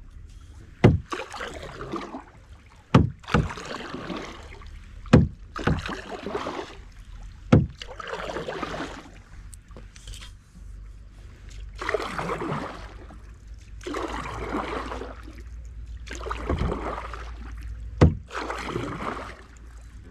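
Canoe paddle strokes through the water, a swish and splash about every two seconds, with several sharp knocks as the paddle strikes the canoe.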